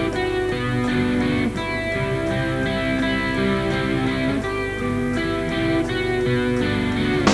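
Electric guitar picking a slow intro of ringing, held notes that change about every half second to a second, with no drums playing.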